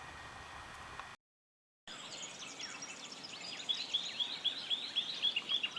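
Wild birds calling outdoors. After a brief dropout in the sound, one bird repeats short, downward-sweeping chirps about three times a second, with fainter calls from other birds behind it.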